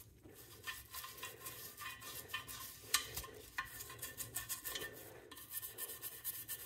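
Small detailing brush scrubbing the carbon buildup inside a metal exhaust tip, in quick, rapid back-and-forth strokes. There is one sharper clack about three seconds in.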